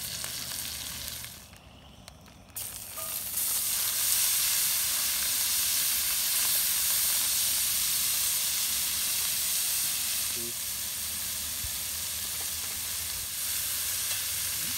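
Food sizzling in a hot cast-iron skillet on a propane-canister camp stove: first steaks searing, then after a brief quieter dip about two seconds in, a louder steady sizzle of vegetables being stir-fried.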